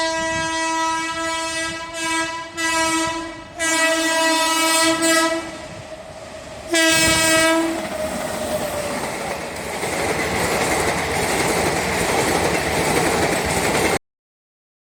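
WAP-4 electric locomotive's horn sounded in a series of blasts, the last about seven seconds in, as the Sethu Superfast Express runs through the station without stopping. After the last blast the rumble and wheel clatter of the passing train build up, then cut off suddenly near the end.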